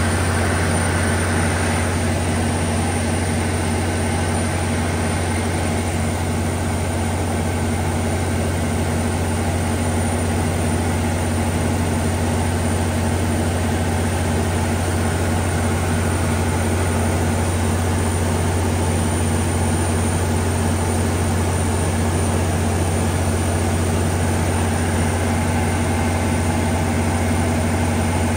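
Daewoo P222LE V12 diesel engine of a Generac SD0600 600 kW generator set running at a steady, unchanging speed with a deep, even drone.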